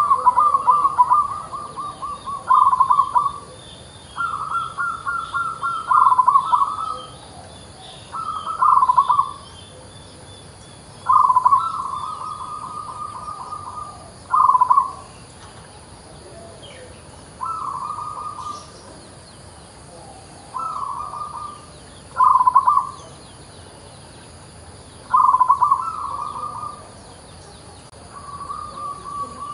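Zebra dove (local perkutut) singing: about ten phrases of rapid, rolling coos, each one to two seconds long, with short pauses between.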